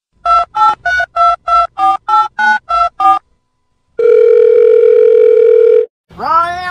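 Telephone keypad beeps dubbed over fingers pressing a puppy's paw pads: ten short two-note dialling tones in quick succession, then a steady phone tone for about two seconds. A pitched voice starts just before the end.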